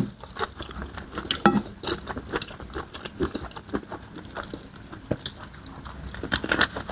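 Close-up eating sounds: starch fufu, banga soup and smoked chicken being chewed and bitten, with irregular short wet mouth clicks and smacks several times a second.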